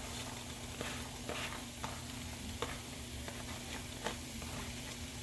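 Chopped mushrooms and bell pepper sizzling as they go into hot butter and olive oil in a nonstick frying pan. A few light taps and scrapes come as they are pushed off a paper plate.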